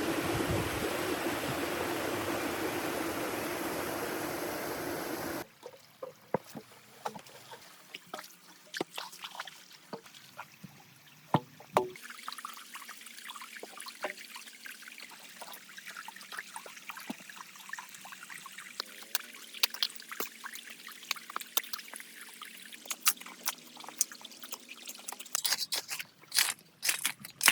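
Water flowing steadily in a miniature dam model for about five seconds, then cutting off abruptly to a quieter trickle with scattered drips and small sharp clicks, which grow denser near the end.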